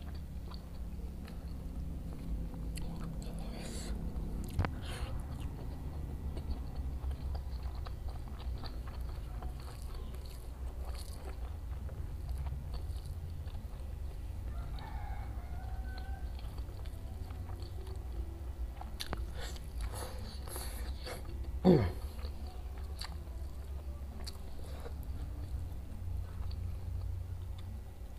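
Close-miked eating: biting and chewing fried tofu, tempeh and vegetables with sambal, many small wet clicks over a steady low hum. A chicken calls faintly about halfway through, and a short, sharp squeal sliding down in pitch comes near the end.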